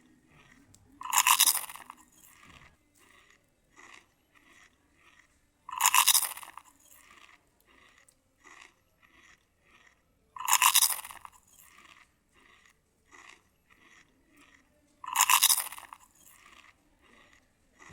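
Close-miked eating of crispy food: four loud crunchy bites about every four and a half seconds, with softer chewing clicks and smacks between them.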